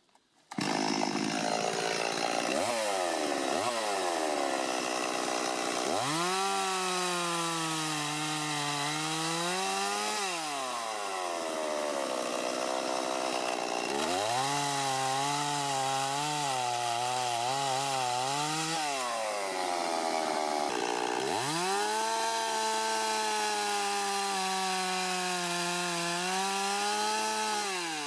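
Chainsaw cutting into wood at full throttle, making a bore cut. The engine comes in suddenly and runs at high revs, then drops in pitch under load three times as the bar sinks into the timber, rising back each time the load eases.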